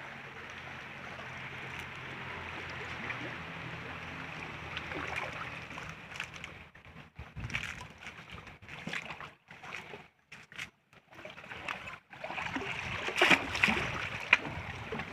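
Water running and lapping among rocks at a stream's edge, as a steady rushing hiss that grows louder and busier over the last few seconds, with scattered small clicks and crackles.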